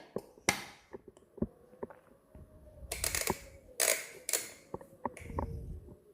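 Hands working around a coffee grinder before it runs: scattered sharp clicks and knocks, with several short rattling bursts like beans or parts being moved, and no motor running.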